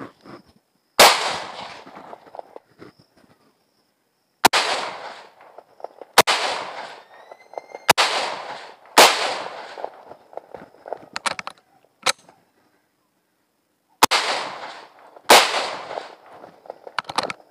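Mauser C96 broomhandle pistol in .30 bore fired as single shots, about seven at irregular intervals, each a sharp crack with a tail of echo dying away over about a second. A few lighter clicks fall between the shots.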